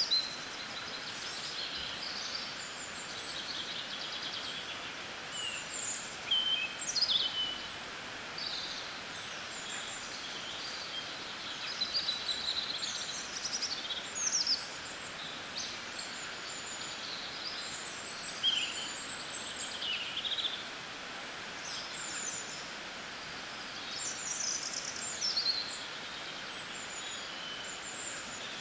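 Several small songbirds chirping and singing in short, high phrases, some with quick falling sweeps, over a steady background hiss.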